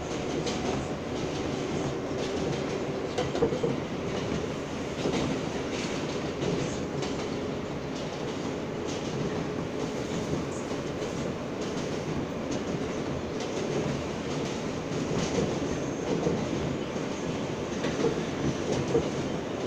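R143 subway car running at speed along elevated track, heard from inside the car: a steady rumble of wheels on rail, with occasional clacks over rail joints.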